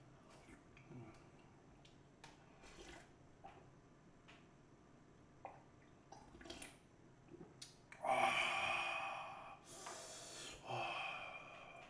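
A man breathing out hard twice in long breathy sighs, the kind of blowing exhale that comes from a mouth burning with very spicy food. The first comes about eight seconds in and the second, shorter one near the end, after faint clicks and taps of eating from a plastic container.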